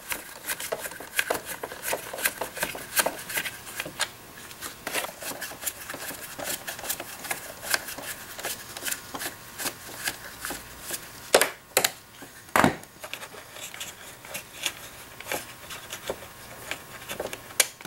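T15 Torx screwdriver turned by hand, backing screws out of a Jura espresso machine's metal side panel: a run of irregular small clicks and scrapes, with a few louder knocks about two-thirds of the way through.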